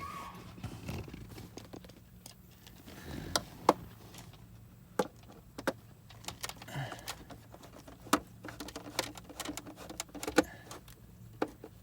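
Scattered light clicks, taps and small metallic clinks of screws and plastic trim parts being handled, over a steady low hum.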